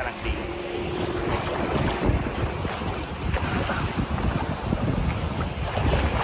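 Wind buffeting the microphone in irregular gusts, over the wash of sea waves.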